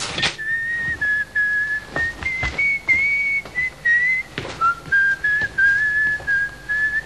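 A person whistling a slow tune, one clear note at a time, the notes held and stepping up and down, with a few soft knocks under it.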